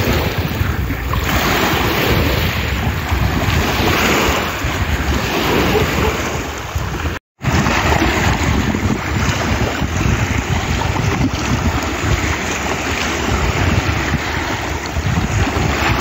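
Small sea waves washing over a pebble shore, with wind buffeting the microphone in a low rumble. A sudden brief cut to silence about seven seconds in, then steady wind and sea again.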